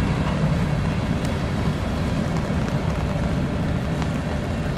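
Tail end of a freight train rolling past and away: a steady low rumble of steel wheels on rail, with a few faint clicks.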